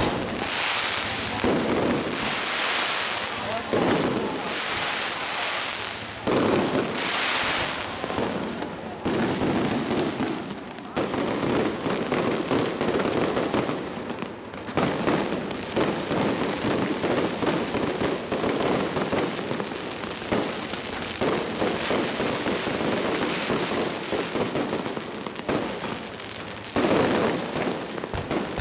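Barrage of aerial fireworks going off overhead: a dense, unbroken run of bangs, pops and crackling, with several loud hissing bursts in the first nine seconds or so.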